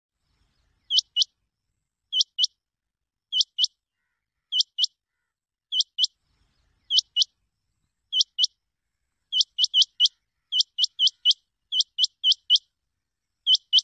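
Rain quail calling: sharp, high double notes repeated about every second and a quarter, quickening into groups of three and four notes about two-thirds of the way through.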